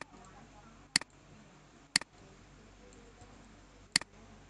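Four sharp single clicks from computer use, the first three about a second apart and the last after a two-second gap, over faint room hum.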